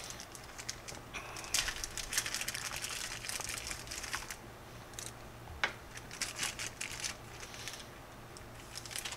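Faint crinkling and small clicks of the leather repair kit's packaging being handled as the black colour compound is taken out, busiest in the first few seconds, with one sharper click about halfway through.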